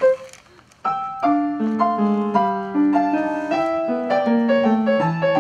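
Solo piano music: a single note, a short pause, then from about a second in a flowing passage of notes and chords over a bass line.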